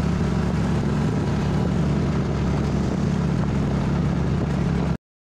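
Motorbike engine running steadily under way, with road and wind noise from the moving bike. The sound cuts off abruptly about five seconds in.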